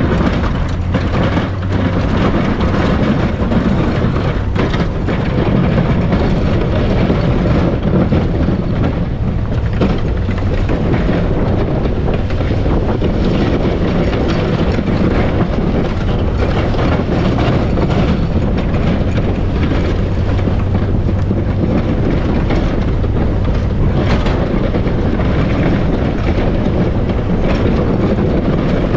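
Chevy pickup plowing heavy wet snow with a Fisher plow: the engine runs steadily under load while the blade pushes and scrapes snow and the tyres crunch through it. There is rushing wind noise on the microphone, which is mounted outside by the front wheel.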